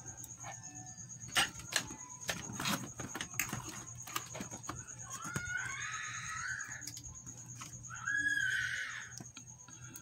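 Light clicks and knocks of analog multimeter test leads and the meter being handled, then two drawn-out animal calls, the second about three seconds after the first.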